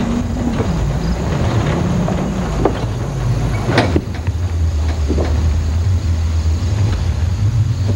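Truck engine running at low speed, its note falling in the first couple of seconds and then holding steady and low. A few sharp knocks sound as the wheels roll onto the bridge's wooden plank deck, the sharpest about four seconds in.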